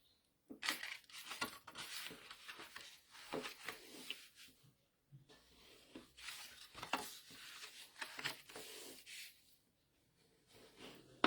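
Cardstock being worked by hand, scored and creased: a series of faint, irregular scraping and rubbing strokes with short pauses.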